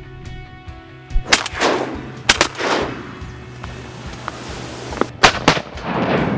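Several shotgun shots at ducks: one about a second in, a quick pair a second later, and another quick pair about five seconds in, each with an echoing tail.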